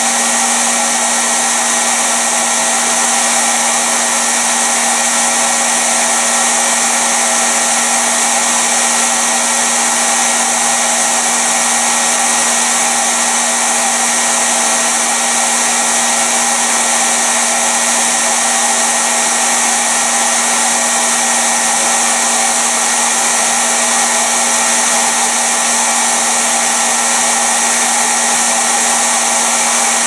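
Braun Type 4436 600 W twin-motor bonnet hair dryer running steadily, both fan motors blowing air into its fabric hood: a constant rush of air over a steady low motor hum.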